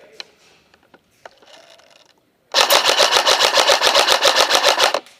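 Airsoft rifle firing a full-auto burst of about two and a half seconds, rapid even shots at about ten a second, loud and close, after a couple of single sharp cracks.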